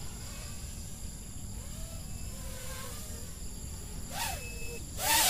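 Racing quadcopter on Dalprop T5051C propellers flying overhead, its faint motor whine rising and falling in pitch as the throttle changes, with two short louder swells near the end.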